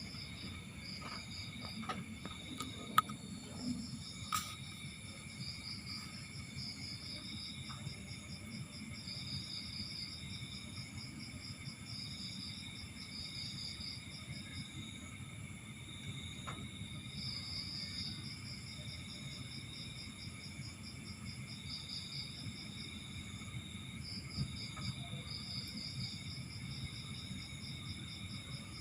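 Crickets chirping in repeated fast trills that stop and start, over a steady high insect whine, with a few sharp clicks around three to four seconds in.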